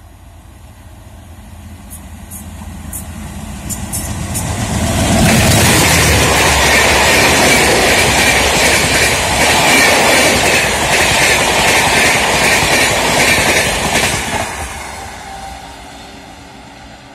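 Indian Railways WDM3D diesel locomotive hauling a Shatabdi Express through a station at about 120 km/h. The rushing noise grows as it approaches and the engine's low sound peaks as the locomotive passes about five seconds in. The coaches' wheels then clatter over the rail joints for about eight seconds before the sound fades away.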